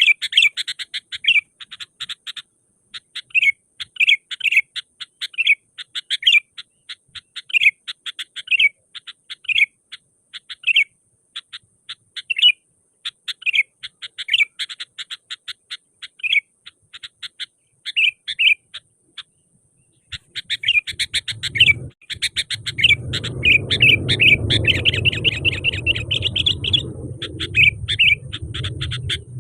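Sooty-headed bulbul (kutilang) calling vigorously: rapid chattering chirps mixed with repeated short whistled notes. About two-thirds of the way through, a low rumbling noise starts underneath the calls.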